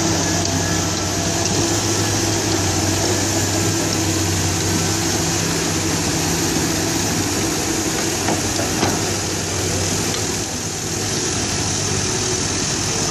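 Komatsu crawler excavator's diesel engine running steadily at a low, even pitch, with a constant hiss over it. A single brief knock comes about nine seconds in.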